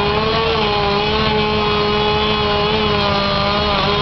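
An engine running steadily at a fairly high, even speed, its pitch wavering only slightly.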